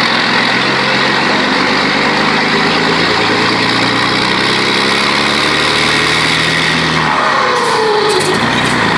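Scania 112 truck engine with a modified exhaust engine brake, running with a loud, steady rasp. About seven seconds in, the pitch falls as the engine slows.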